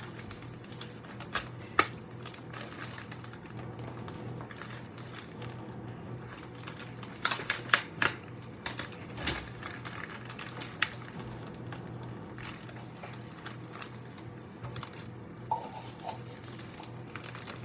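A metal fork jabbing and tapping at a packet of powdered sugar to break it open: scattered sharp clicks and taps, with a quick run of them about seven to nine seconds in, over a steady low hum.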